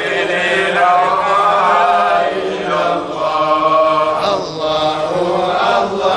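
Islamic devotional chanting in Arabic: a male voice sings long, drawn-out melodic lines that bend and sway in pitch.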